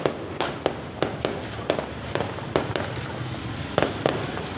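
Aerial fireworks bursting in an irregular, rapid series of sharp bangs, about two or three a second.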